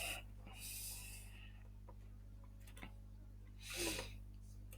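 Quiet room tone with a steady low electrical hum, a few faint clicks, and one short breath just under four seconds in.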